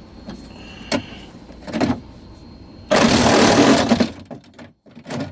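Ryobi reciprocating saw run in one short burst of about a second, cutting into a car door panel, after a couple of light knocks. The saw stops abruptly.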